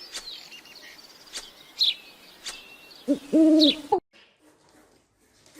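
A short, low, hooting animal call about three seconds in, preceded by a few sharp clicks and faint high chirps; the sound cuts off abruptly a second later.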